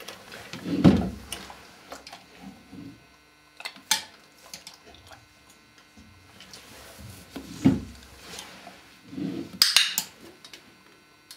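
Knocks and rattles of a small white plastic wall drawer as a German Shepherd tugs at the strap tied to its handle: a heavy knock about a second in, a few sharp clicks, and more knocking and rattling near the end.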